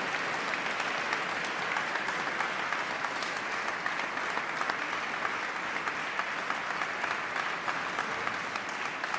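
Congregation applauding, many people clapping steadily, easing slightly near the end.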